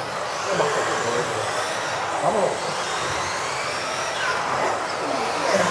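Several 1:10 electric off-road RC buggies racing, their brushless motors whining and sliding up and down in pitch as they speed up and slow down.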